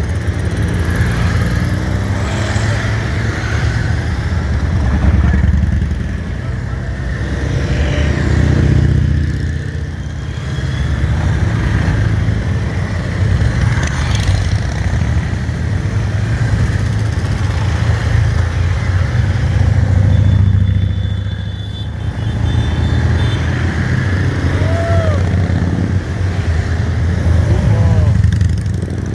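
A long column of motorcycles riding past one after another, engines running steadily, swelling louder several times as groups of bikes go by.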